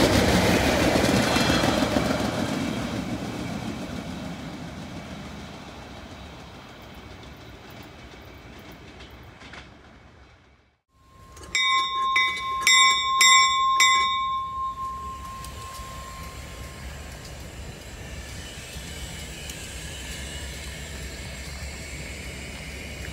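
Capital MetroRail Stadler GTW diesel railcar passing close by, its rumble dying away over about eight seconds. After a sudden cut, metal under a railcar is tapped by hand several times, each tap ringing with a clear tone. Then a low steady rumble from idling diesel locomotives.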